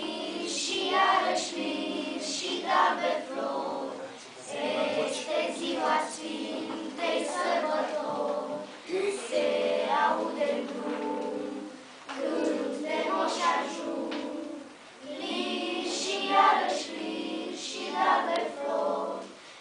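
Children's choir singing a Romanian Christmas carol (colind) in unison, in phrases of a few seconds with brief breaths between them.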